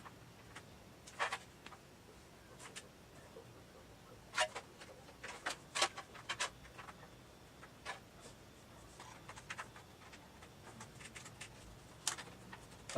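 Faint, irregular clicks and taps from hands routing and plugging SATA cables inside a PC case. A quick cluster of clicks comes in the middle, with single taps before and after it.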